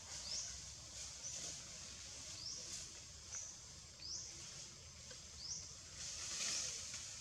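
A bird repeating short, high chirps that rise quickly and then level off, about one a second, over a faint background hum.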